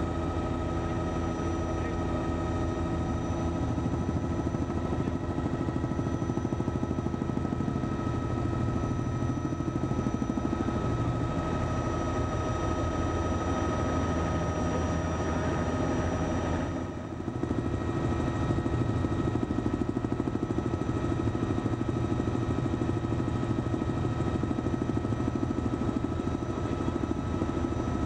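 Steady helicopter engine and rotor noise, with a constant whine over a low rumble; it dips briefly about two-thirds of the way through.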